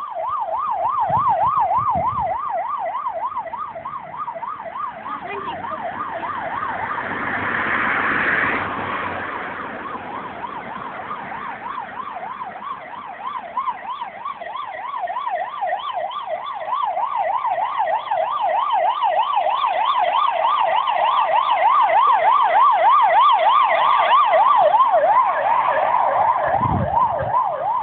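Hungarian police car siren in a fast yelp, its pitch sweeping rapidly up and down several times a second without a break, growing louder in the second half.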